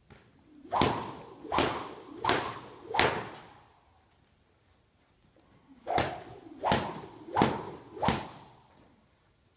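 Eight sharp, whip-like slaps in two sets of four, evenly spaced about three quarters of a second apart, each trailing off with a short echo.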